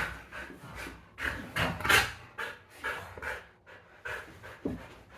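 Dog panting hard during play, a string of short breathy pants that grow fainter toward the end.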